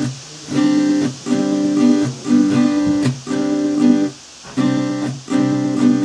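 Background music: a repeating run of chords with short breaks about three and four seconds in.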